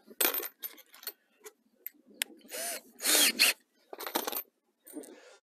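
Short bursts of handling and tool noise as aerator mounting parts and fasteners are worked by hand on a dock deck, with a brief gliding whine a little before the middle.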